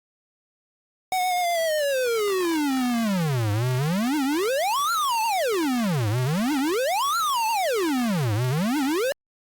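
Synthesized buzzy tone rich in overtones, a data sonification of Ecuador's border outline. It starts suddenly about a second in and glides slowly down to a low pitch. It then swoops up and down three times, rising high and falling low each time, and cuts off abruptly near the end.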